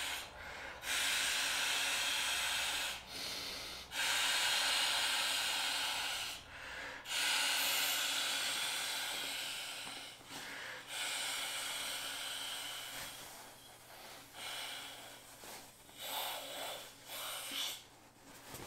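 Mouth-inflating a Klymit Pillow X through its valve: long breaths blown into the pillow, each lasting two to three seconds, with short pauses to inhale. In the second half the breaths become shorter and weaker as the pillow fills out.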